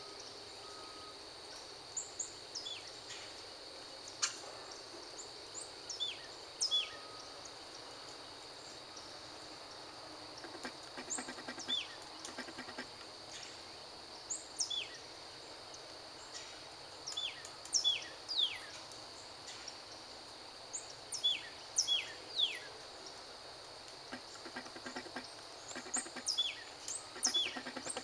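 Scattered short, sharp bird chirps, each sliding quickly downward, some higher and some lower in pitch, coming singly and in quick pairs. Under them runs a steady high insect drone.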